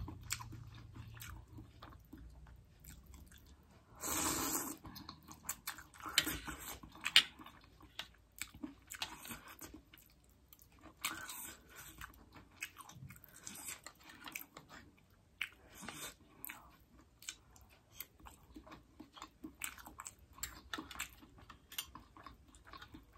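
A person eating spicy noodle soup close to the microphone: wet chewing and slurping, with small clicks of a metal spoon and fork in the bowl. A longer, louder slurp comes about four seconds in.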